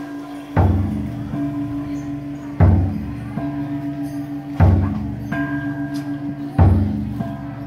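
Muong bronze gongs played in a slow repeating pattern: a deep gong struck about every two seconds, with higher gongs sounding in between. Their tones ring on and waver.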